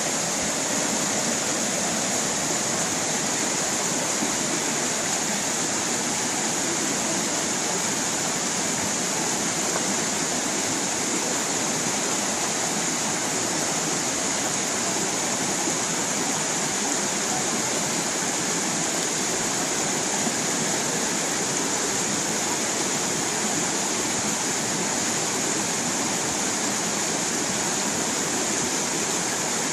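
Stream water rushing and splashing over rocks, a steady unbroken rush with a lot of hiss.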